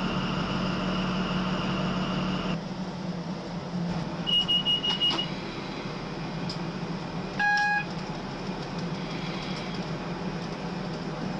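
Steady drone of a Class 43 HST power car heard from inside its driving cab, carrying a held whining tone that falls away about two and a half seconds in. About four seconds in comes a quick run of about six short high beeps, and a little later a single short electronic tone, from the cab's warning equipment.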